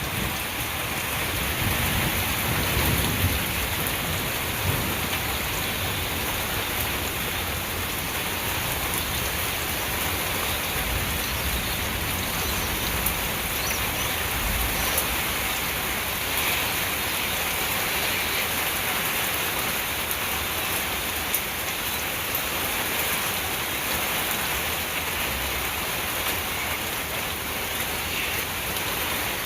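Steady rain falling hard during a thunderstorm, an even hiss of rain on surfaces.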